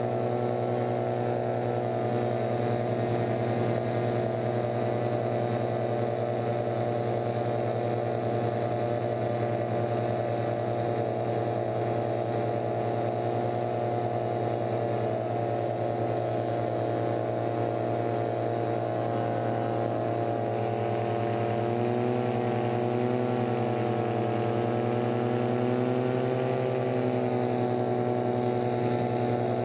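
A paratrike's engine and propeller run steadily at cruise power in flight. The engine pitch wavers slightly up and down about two-thirds of the way through.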